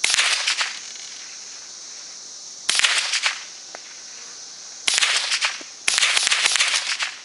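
Four shots from a Marlin Model 60 semi-automatic .22 rifle, each a sharp crack with a short echo trailing after it. The first comes right at the start, the second about three seconds later, and the last two close together near the end. A steady drone of insects runs underneath.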